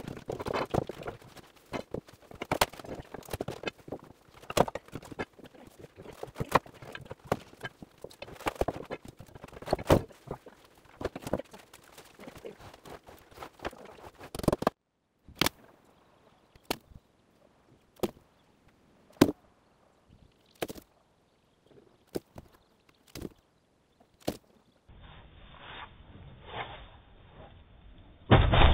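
Knocking and clattering of old wooden floor timbers and steel crowbars as the floor is torn out down to the sand: dense for the first half, then sparser single sharp knocks. A louder heavy thud comes right at the end.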